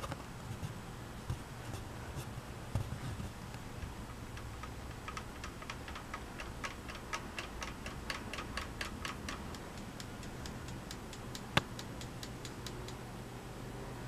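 42-inch Walmart ceiling fan running with a steady low hum. From about five seconds in it ticks evenly, about four times a second, with one louder click near the end.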